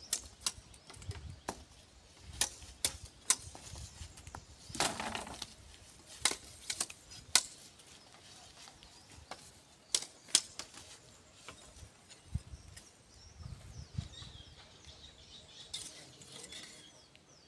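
Irregular sharp knocks and cracks of bamboo being worked with hand tools, a few loud strikes and lighter taps, with a brief crackle about five seconds in. Birds chirp faintly near the end.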